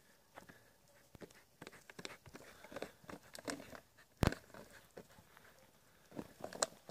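Scattered light crackles and clicks with one sharp click about four seconds in: a plastic soft-drink bottle crinkling as a dog carries and bites it.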